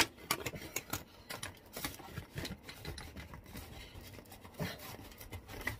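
Scattered clicks and scrapes of a flexible ribbed plastic pipe being handled and worked onto a pipe stub, with a sharp click right at the start.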